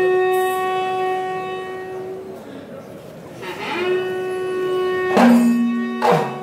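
Ritual horns blown in long, steady blasts: one note held for about three seconds, a pause, then the same note again, with a second, lower and louder horn joining near the end.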